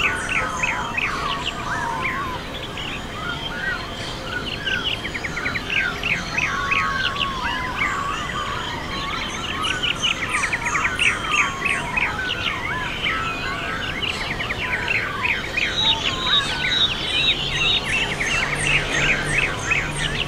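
Dawn chorus: many birds singing at once in dense, overlapping chirps, trills and whistles.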